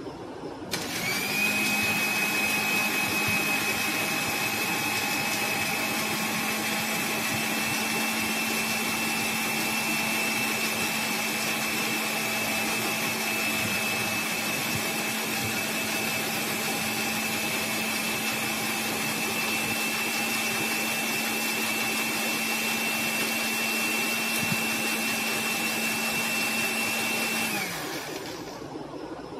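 A Walton electric blender is switched on about a second in and runs with a steady whine for nearly half a minute, blending a liquid egg, sugar and lemon mixture until the sugar dissolves. Near the end it is switched off and winds down, its pitch dropping as it fades.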